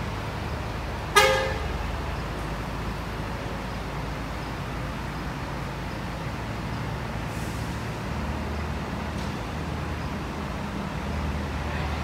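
Bus horn giving one short, loud toot about a second in, over the steady low running of a bus engine as the bus pulls away; the engine grows louder near the end.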